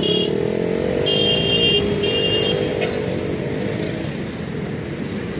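Motorcycle engines running at low revs, one gently rising and falling in pitch as it is ridden slowly around the course. Two short high-pitched tones sound about a second and two seconds in.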